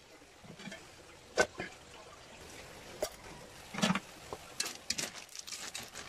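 Metal ladle stirring small snails in simmering coconut milk in a wok: irregular clinks and scrapes of the ladle against the pan and the shells, loudest about a second and a half in and near four seconds, over a faint wet bubbling.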